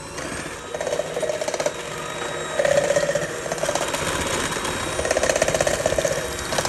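KitchenAid hand mixer running on medium-high, its beaters whipping liquid brown butter in a stainless steel bowl, the level rising and falling unevenly as the beaters work around the bowl.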